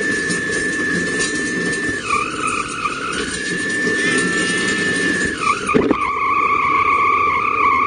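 High-pitched electric whine from a small autonomous rover's drive motor as it creeps forward. The whine holds one steady pitch, wavers for about a second, then slides down about five seconds in and settles at a lower, steady pitch, over a low background hiss.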